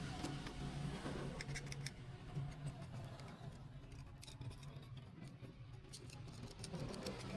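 Faint scattered small clicks over a low steady hum.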